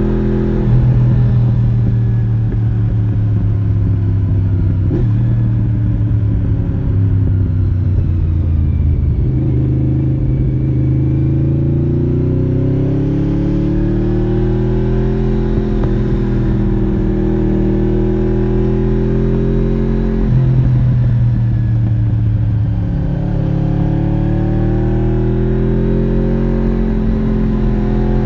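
1993 Honda VFR750 (RC36) 90-degree V4 engine through its modified original muffler, heard from the rider's seat while riding: the engine note climbs and falls with the throttle, with a sudden drop in pitch about two-thirds of the way through before it climbs again.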